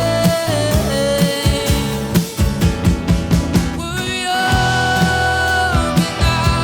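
Live band music, an indie rock song between sung lines: drums keep a steady beat under bass and sustained lead melody notes that slide between pitches.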